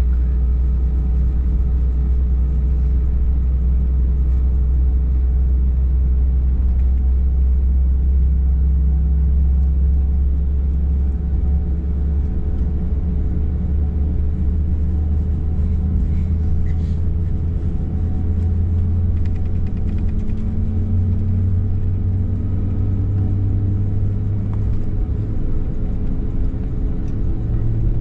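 Airbus A321 cabin noise: a steady low rumble from the jet engines and airframe, with engine tones that slowly rise in pitch during the second half.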